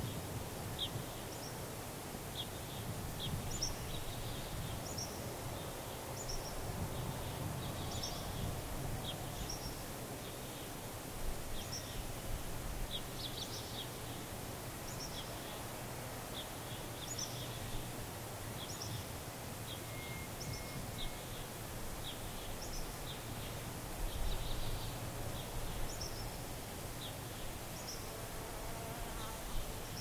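Desert outdoor ambience: short high chirps repeating about once a second at an uneven pace, over a steady hiss and a low hum.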